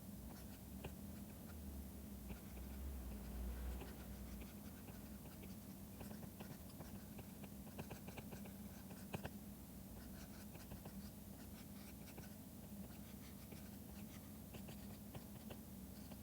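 Faint strokes and taps of a stylus pen on a drawing tablet: irregular small ticks and scratches over a steady low hum.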